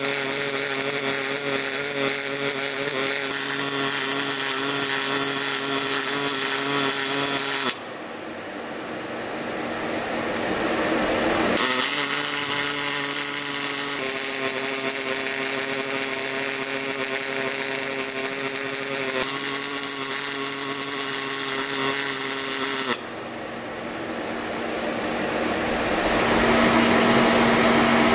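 Robotic MIG welding arc: a steady loud buzz that cuts off abruptly about 8 seconds in, starts again a few seconds later and cuts off again about 23 seconds in, as the cobot lays successive weld beads. After the arc stops, a steady machine hum remains.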